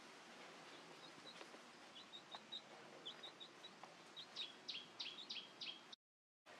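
Small birds chirping faintly over a steady low hiss: scattered short, high chirps, then a run of five louder, quick down-slurred notes about four seconds in. The sound cuts out for about half a second near the end.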